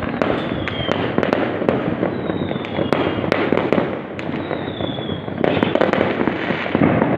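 Fireworks going off in a dense, continuous barrage of crackling bangs, with a brief lull about four seconds in. Several short whistles falling slightly in pitch sound through the barrage.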